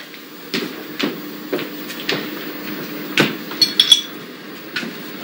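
Footsteps on a hard floor, about two a second, with a brief clatter of glass clinks about three and a half seconds in.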